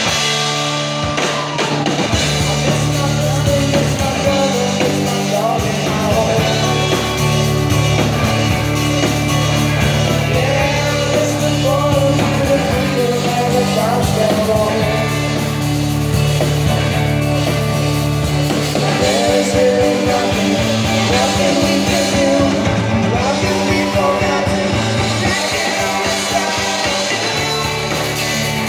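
Live rock band playing a pop-rock song at full volume: electric guitars, bass guitar and a drum kit, with a sung lead vocal over it.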